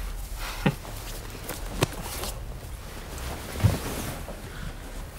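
Quiet movement sounds as a person gets out of bed: low hiss of room tone with a few soft clicks and knocks, and a duller thump a little before the middle.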